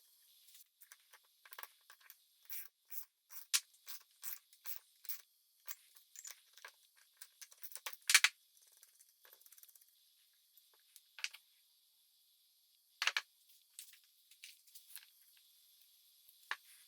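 Light, irregular metallic clicks and small scrapes of new cylinder studs and tools being handled and threaded into a Yamaha YZ85 cylinder, with a couple of sharper clicks about eight and thirteen seconds in.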